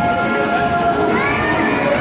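Carousel music playing steadily as the ride turns.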